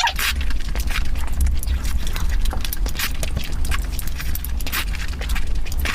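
Close-miked eating sounds: irregular wet clicks and smacks of chewing and mouth noises as eggs are eaten, over a steady low hum.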